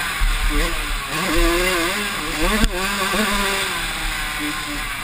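Yamaha YZ85 two-stroke dirt bike engine racing over rough dirt, its revs rising and falling as the rider works the throttle, with sharp climbs in pitch about half a second, about one and a third seconds and about two and a half seconds in. Steady wind noise runs underneath.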